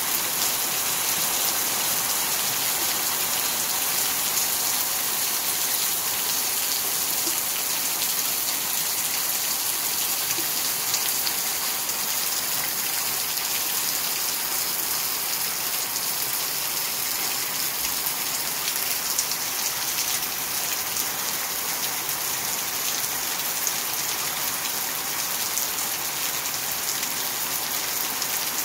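Heavy rain falling steadily: a dense, even hiss of downpour with no let-up.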